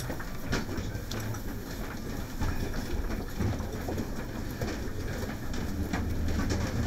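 Footsteps and shuffling of several people climbing the stairs of a narrow enclosed tunnel, irregular knocks over a steady low rumble.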